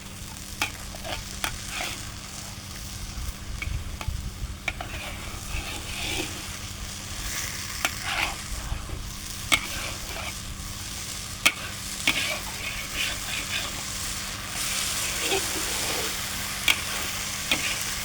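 Fish curry with coconut cream sizzling and bubbling in a pan, stirred with a utensil that clicks against the pan every so often.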